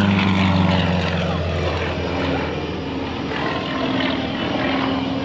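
Sukhoi aerobatic monoplane's nine-cylinder radial engine and propeller droning overhead during the display. The pitch falls over the first second or so as the plane passes, then the drone carries on steadier and a little quieter.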